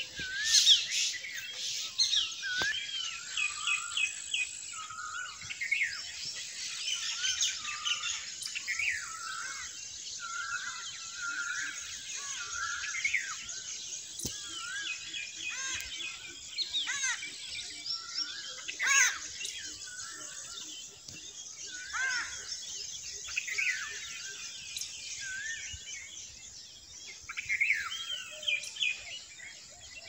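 Several birds chirping and whistling at once, with many short overlapping calls, repeated whistled notes and quick trills all through.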